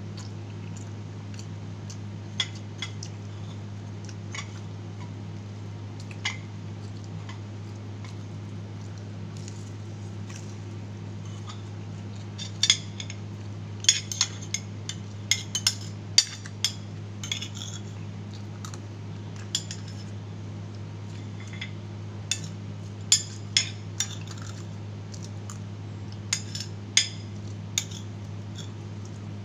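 Eating utensils clinking and scraping against a plate in scattered sharp clicks, thickest in the middle and again near the end, over a steady low hum.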